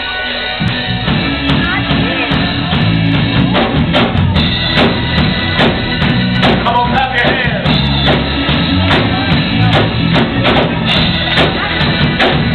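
Live gospel praise-and-worship music played through the church sound system: a band with bass and drums and singers at microphones, with a sharp percussive beat about twice a second.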